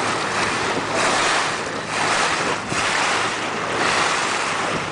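Wind buffeting the microphone and water rushing past a moving boat, swelling and easing every second or so, over a faint low steady hum.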